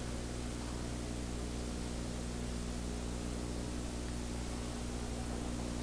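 Steady hiss with a low electrical hum underneath, unchanging throughout, with no other sound.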